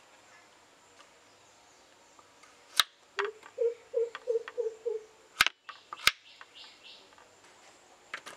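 A kitchen knife cuts through raw peeled potatoes and knocks on a wooden chopping board: sharp single knocks about three seconds in, and twice more between five and six seconds. Between them an animal in the background calls five short notes in a row.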